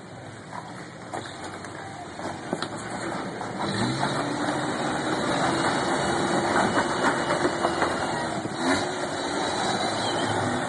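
Lifted pickup truck's engine working under load as it crawls up a steep rock ledge, getting louder and revving harder about a third of the way in, with scattered clicks and knocks as it climbs over the rock.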